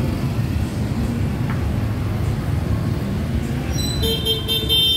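Steady street traffic, motorbikes and cars running along a city road. About four seconds in, a high steady tone joins it.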